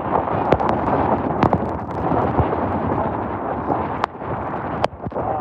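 Hail pelting down in a dense, steady rattle of impacts, with a handful of louder single hits standing out.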